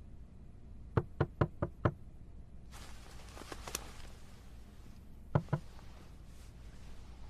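Knuckles rapping on a car's side window: five quick knocks, then two more a few seconds later.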